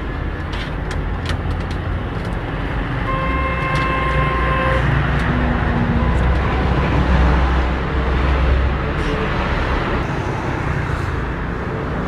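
Steady engine rumble of motor traffic, with a vehicle horn sounding for about two seconds starting about three seconds in.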